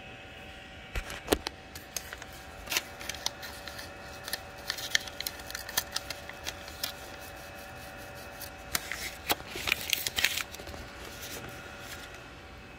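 Irregular light clicks and scratchy rustling as a slip of paper is slid under the nozzle of a Sovol SV02 3D printer to check the bed gap. A steady hum of the printer's fans runs underneath.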